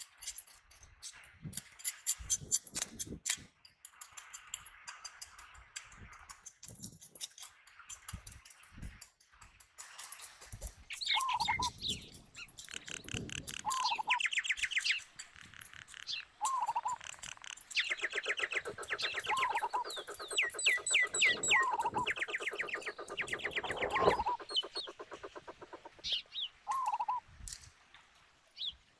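A knife scraping scales off a fish in quick, short strokes. About a third of the way in, birds start calling: a short hooked call repeats every couple of seconds among fast trills, and the calling grows busiest past the middle.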